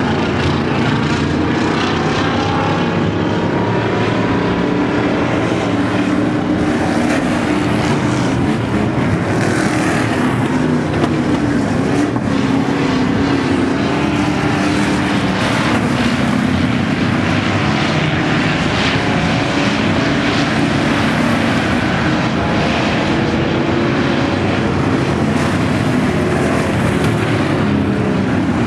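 Several V8 dirt-track stock cars racing, their engines running loud and hard together, with the engine pitch rising and falling as the cars pass.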